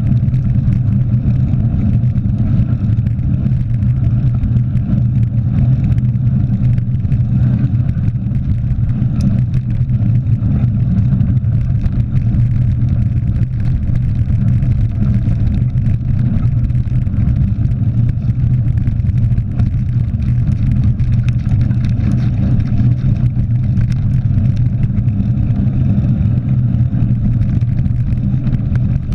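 Steady low rumble of wind on the microphone and mountain-bike tyres rolling over a gravel road, picked up by a GoPro mounted on a bike ridden at speed.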